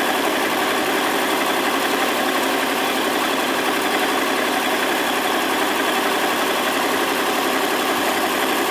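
Zetor 4712 tractor's diesel engine running steadily at low revs.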